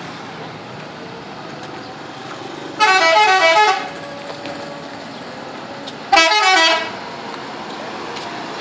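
Telolet multi-tone musical air horn on a New Shantika bus, playing two quick runs of stepping notes: one about a second long near three seconds in, and a shorter one about three seconds later. A steady engine hum runs under it.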